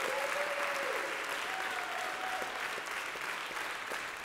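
Audience applauding, with a couple of drawn-out cheers rising above the clapping.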